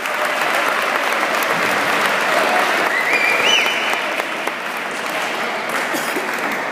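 Audience applauding, loudest about three and a half seconds in and easing off near the end, with a short rising tone about three seconds in.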